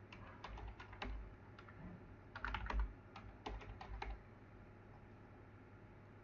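Computer keyboard typing: several short runs of keystrokes, stopping about four seconds in.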